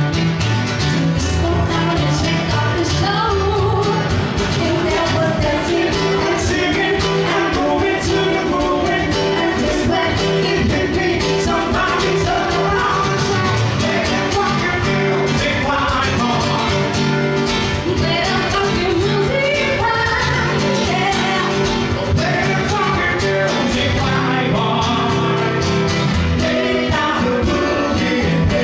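A woman singing a song into a microphone, accompanied by two strummed acoustic guitars, amplified through a sound system.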